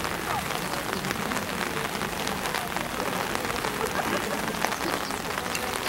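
Steady patter of rain, an even hiss full of small drop ticks, with faint voices in the background.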